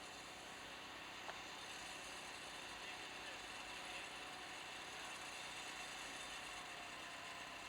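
Faint steady mechanical hum, like an engine running at idle, with a single short click about a second in.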